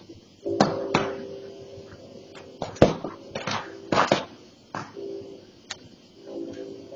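Burning brush popping and crackling: about ten irregular sharp cracks, with a steady low hum that comes and goes.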